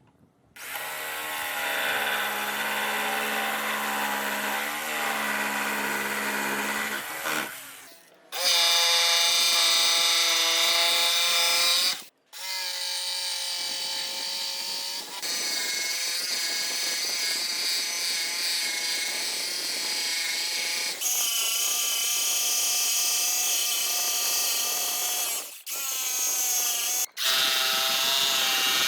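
Electric power tools running on wood, each a steady motor whine with cutting noise. The sound comes in a run of short segments that start and stop abruptly, each at a different pitch.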